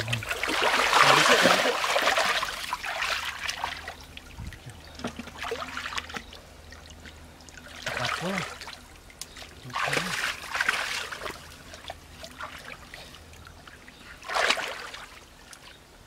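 Shallow ditch water splashing and sloshing in bursts as hands work through it to catch fish, with a quieter trickle between the splashes. The longest, loudest splashing comes in the first few seconds, followed by shorter splashes three more times.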